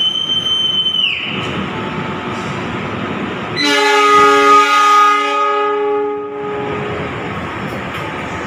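A conductor's whistle, a single high steady blast, ends about a second in: the train's signal that it is ready to depart. About three and a half seconds in, the locomotive's horn sounds one chord for about three seconds as the passenger train pulls out, over the steady running noise of the carriages.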